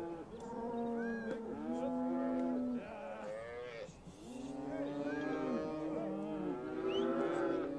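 A herd of cattle mooing, many calls overlapping one another, with a short lull about four seconds in.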